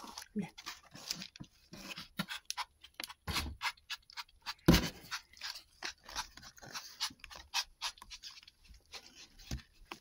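Kitten lapping milk: a quick, irregular run of small wet clicks, about three or four a second, with one louder knock about halfway through.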